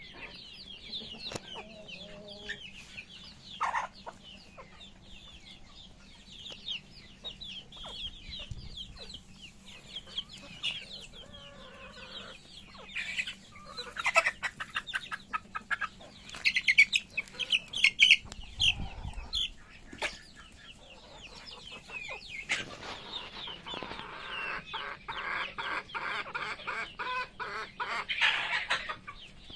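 A flock of chickens clucking and calling, with many short high calls and scattered sharp taps. About three quarters of the way through, the calling grows denser and louder, with rapid taps.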